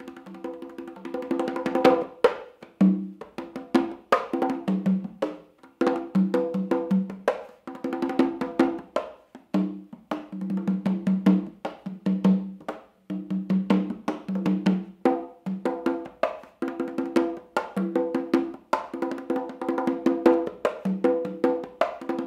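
Solo hand drumming on a pair of congas: a quick, steady rhythm of sharp strokes, with short pitched ringing tones from the two drum heads.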